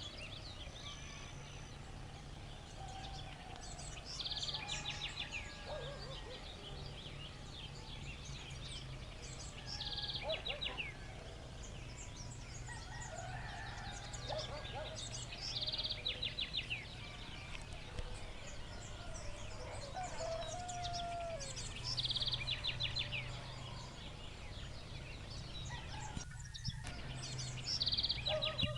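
Dawn chorus of birds in a village: one bird repeats a short, high, rapid trilled phrase about every six seconds, with other bird calls and a rooster crowing in the distance, over a steady low hum.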